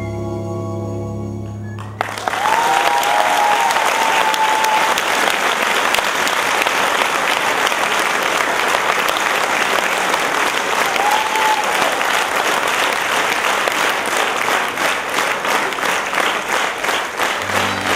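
Dance music ends on a held chord about two seconds in, and a theatre audience breaks into loud applause with a couple of short whistles. Near the end the clapping falls into a steady beat as new music starts.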